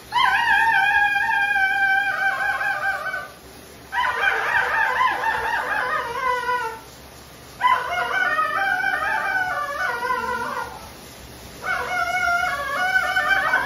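German shepherd howling during a bath, in four long, wavering, high-pitched cries of about three seconds each with short pauses between them.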